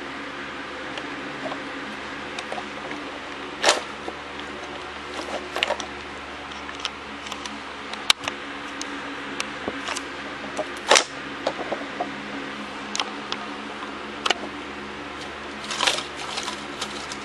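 Irregular sharp clicks and crinkles of plastic LEGO bricks and crumpled foil trash being handled as they are pushed into a homemade LEGO garbage truck, the loudest click about eleven seconds in, over a steady background hum and hiss.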